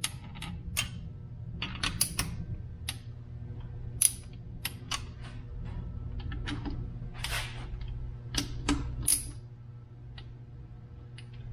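Hand socket ratchet clicking in short, irregular runs as it snugs up the bolts joining the two halves of a Subaru EJ25 aluminium engine block, drawing the case halves together over wet RTV sealant.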